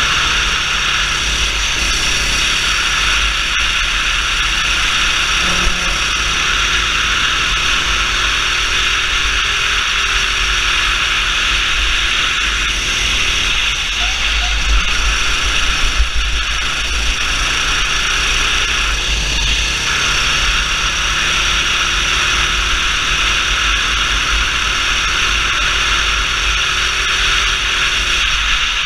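Go-kart engine running at speed, heard through an onboard camera's microphone and largely covered by steady wind hiss and low buffeting; a faint engine note rises and falls through the corners.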